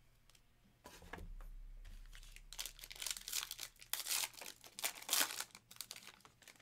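Foil wrapper of a Panini Donruss basketball card pack being torn open and crinkled by hand: a run of sharp crinkling and tearing that starts about two seconds in and lasts about three seconds.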